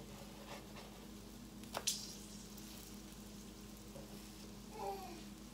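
Quiet room with a steady low hum and faint hiss, broken by a few faint clicks, the clearest just under two seconds in.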